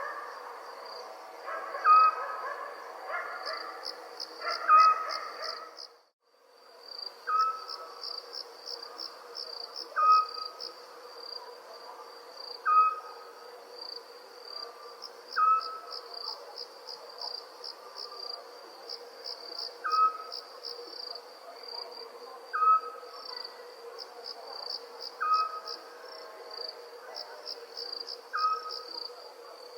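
Crickets chirping in a steady, fast-pulsing high chorus. Over it, an owl gives a short call about every two and a half seconds. The sound cuts out briefly about six seconds in.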